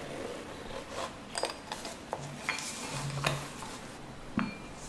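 A metal singing bowl being handled, giving a few light clinks and taps, several followed by a short high metallic ring.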